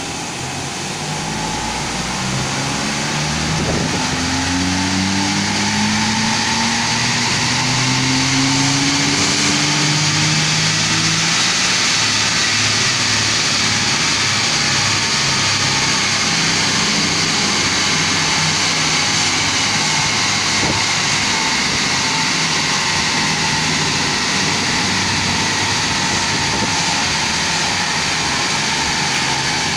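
Honda Jazz four-cylinder petrol engine under full load on a chassis dynamometer. Its revs climb, drop back once after a few seconds as it shifts up, and climb again over the first dozen seconds. It then holds at high speed with a steady loud whir from the tyres spinning on the dyno rollers.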